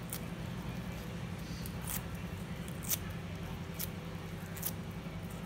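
Fingers picking and tearing at the papery cells of a larva comb, giving a handful of sharp, crisp clicks roughly one a second, over a steady low hum.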